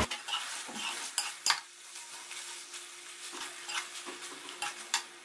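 A metal ladle stirring and scraping chicken karahi in an aluminium karahi, with scattered clinks of metal on metal over the sizzle of the masala frying in ghee. This is the dry bhuna stage, the yogurt water cooked off and the oil separated.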